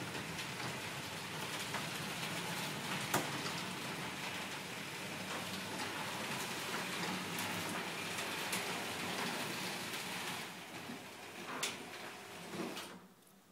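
Nice Spido 6000 ceiling-mounted garage door opener running, driving a sectional garage door along its overhead rail with a steady hiss and low hum. A couple of clicks come near the end before the motor stops and the sound drops away suddenly.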